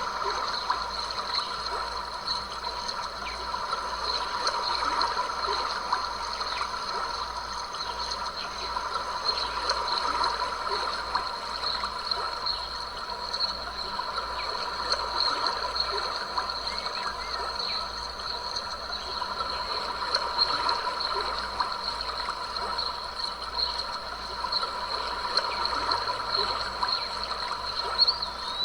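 A small stream babbling and trickling steadily, with a thin, steady high-pitched tone running over it.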